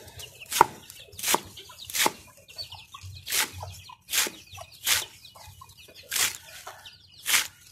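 Large knife chopping leafy greens on a round wooden chopping board: about eight sharp chops, roughly one a second. Chickens cluck and peep faintly between the chops.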